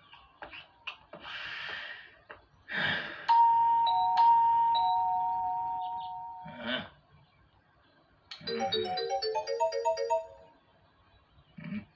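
Cartoon doorbell chime: a loud two-tone ding-dong that rings on and fades over about three seconds, followed a little later by a quick run of short chime notes. Short swishing cartoon sound effects come before it.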